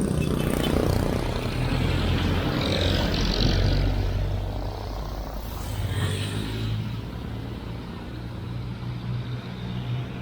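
Street traffic: a motor vehicle's engine running close by, loudest in the first few seconds and then easing off.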